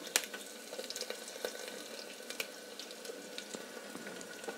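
Garlic cloves and broken dried red chillies frying in hot oil in an aluminium pot: a steady sizzle dotted with small crackles and pops, the sharpest just after the start. This is the tempering (popu) stage, with the oil hot.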